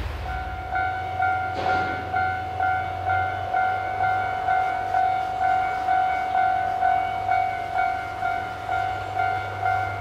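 Railway level-crossing warning bell ringing, an electronic tone pulsing about twice a second, over the low steady hum of a diesel-electric locomotive idling.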